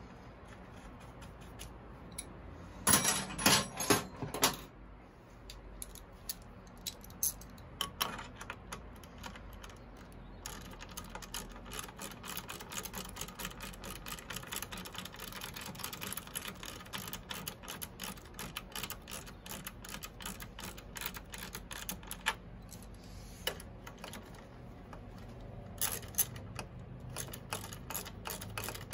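Hand tools clicking on metal fasteners while parts are fastened on a motorcycle engine: a cluster of louder metallic clicks about three seconds in, then long runs of rapid light clicking from about ten seconds on.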